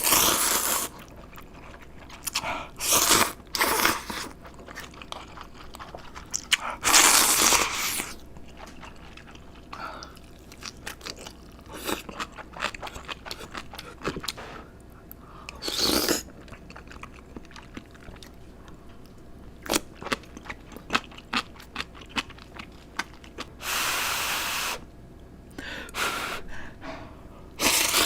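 Close-miked eating of crunchy food: a person biting and chewing, with fine crackling between several louder crunches that come at irregular intervals a few seconds apart.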